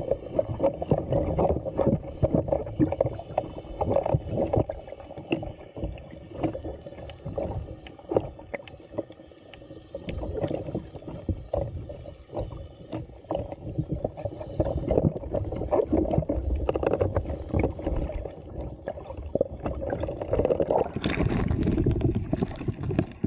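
Muffled underwater water noise beside a capsized kayak: sloshing and bubbling with many small knocks. Water splashes and pours off as the kayak rolls upright near the end.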